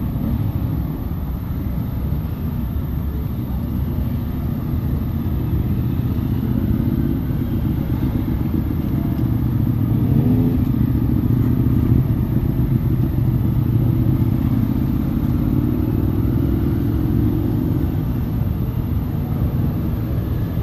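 Motorcycle engines: a steady rumble as bikes ride off one after another, getting louder about halfway through as one passes close.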